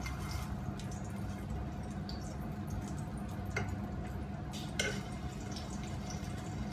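Salmon fillet frying in oil in a non-stick pan, sizzling and crackling steadily over a low hum, with a couple of sharp taps of a metal fork against the pan around three and a half and five seconds in.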